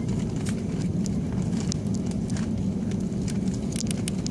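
Airliner cabin noise while taxiing: a steady low rumble from the jet engines and rolling aircraft, with scattered light clicks and rattles throughout.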